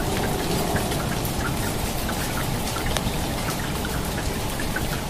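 Steady rain falling, with many short drop ticks close by.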